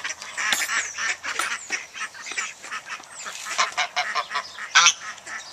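A small flock of domestic geese and ducks calling: many short honks and quacks overlapping, with one loud honk near the end.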